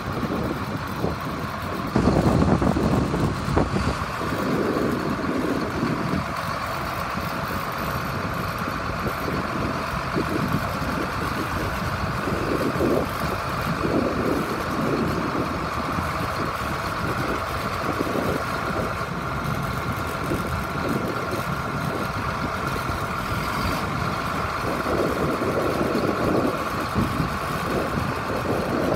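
John Deere 8870 articulated four-wheel-drive tractor's diesel engine running as the tractor pulls out, loudest about two seconds in, then steady, with a high whine held over the engine throughout.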